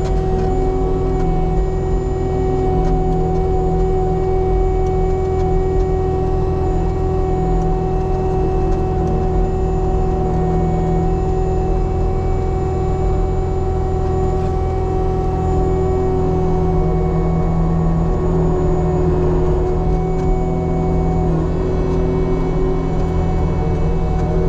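Caterpillar skid steer's diesel engine running at full throttle, heard from inside the cab, with a steady whine on top, while the machine drives and pushes its grader blade.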